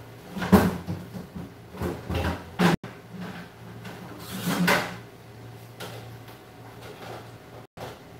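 Kitchen drawers and cupboard doors being opened and shut, several separate knocks and clatters, over a faint low steady hum.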